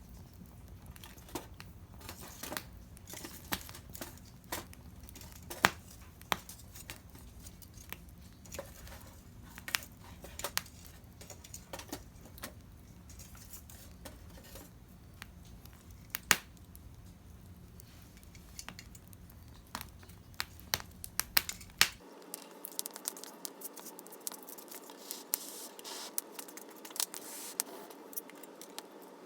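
Wood fire crackling, with irregular sharp pops and snaps. A low background hum drops out about three-quarters of the way through.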